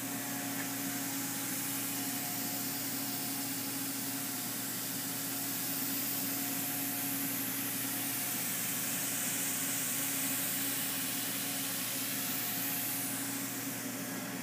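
Steady hum and hiss of a Haas VF-6 CNC vertical machining centre running, the hiss swelling a little in the middle.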